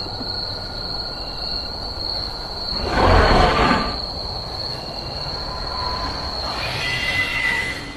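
Horror sound effect: a steady high-pitched whine over a low rumble, with a loud rushing swell about three seconds in that lasts under a second and a fainter rising swell near the end.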